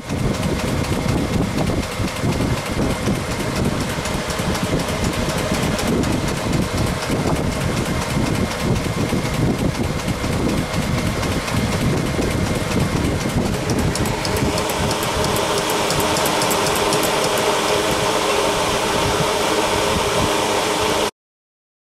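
Consew 1206RB industrial walking-foot sewing machine running, a steady, fast mechanical clatter. The tone shifts about two-thirds of the way through, and the sound cuts off suddenly near the end.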